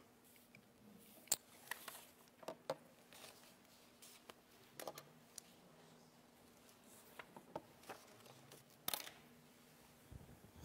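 Near silence with faint scattered clicks and rustles of paper being handled at a pulpit microphone, the sharpest click about nine seconds in, over a faint steady hum.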